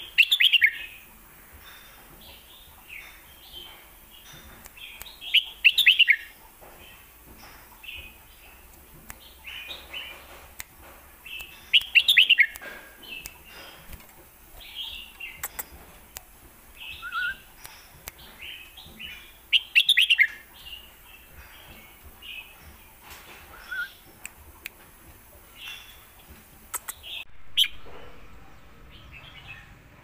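Caged red-whiskered bulbul singing: loud, quick bubbling whistled phrases roughly every six to eight seconds, with softer short chirps in between.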